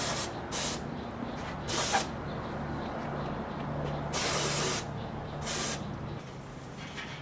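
Aerosol can of carburetor cleaner sprayed in five short hissing bursts, the longest, just under a second, about four seconds in, used to degrease the steel frame's nooks and crannies.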